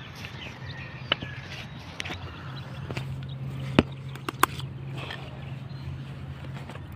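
Footsteps and handling noise from a handheld phone as someone walks through a field, with a few sharp clicks and knocks, the loudest about halfway through. A low steady hum runs beneath, stronger from about a third of the way in.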